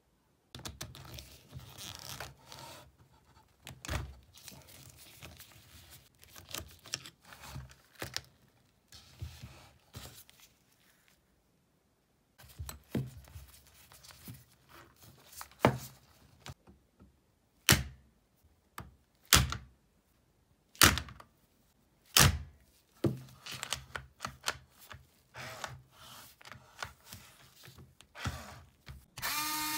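Handling of a cordless drill's chuck and a hex key: rustling and scraping broken by a series of sharp metal knocks and clicks. Near the end the drill's motor spins up with a rising whine.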